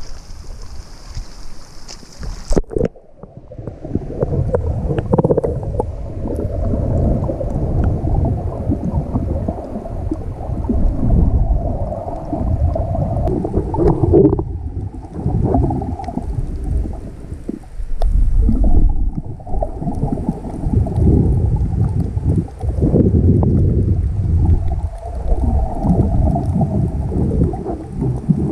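Water sloshing around a waterproof action camera at the surface, then the camera goes underwater about three seconds in. From there it is a muffled underwater rumbling and gurgling of moving water, swelling and easing unevenly.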